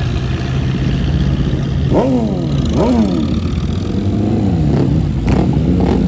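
Performance car engines, one running steadily, then two quick throttle blips about two and three seconds in, each rising and falling sharply, as a car pulls away. An engine winds down after them, with a few sharp cracks near the end.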